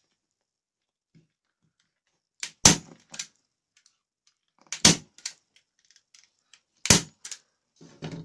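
Manual hand staple gun fired three times, about two seconds apart, each shot a sharp metallic snap with a softer click just before and after, driving staples through leatherette upholstery into a bicycle saddle's base.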